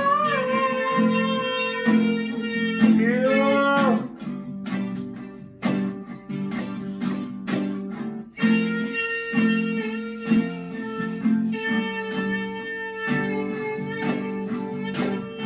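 Instrumental break: acoustic guitar strummed in a steady rhythm under a held melody line that bends in pitch near the start and again about three seconds in.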